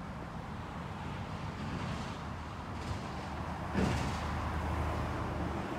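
Outdoor background noise with a steady low rumble of road traffic, a little stronger in the second half, and a brief louder sound about four seconds in.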